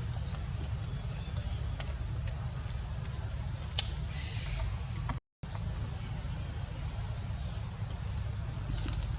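Outdoor wildlife ambience: steady high-pitched chirping of birds and insects over a low rumble. A sharp click comes a little under four seconds in, and the sound cuts out for an instant just past five seconds.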